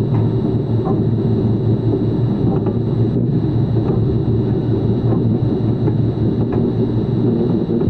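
Steady, loud low mechanical rumble with a constant high-pitched whine over it and a few faint clicks.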